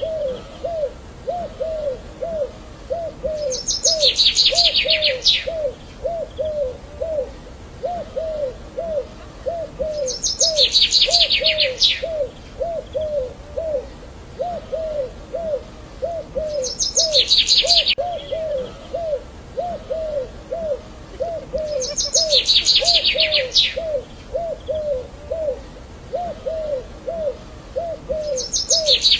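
Birds calling: a steady run of short, low calls about twice a second, with a louder, rapid high trill breaking in about every six seconds.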